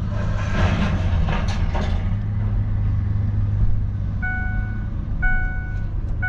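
A loaded pickup truck's engine runs at a low, steady idle, with some rattling in the first couple of seconds. About two-thirds of the way through, an electronic beeper starts, sounding about once a second.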